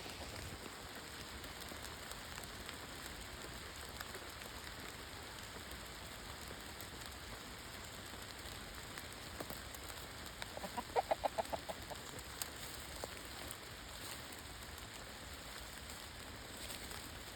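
A chicken clucking: a quick run of about eight short clucks near the middle, over a steady background hiss.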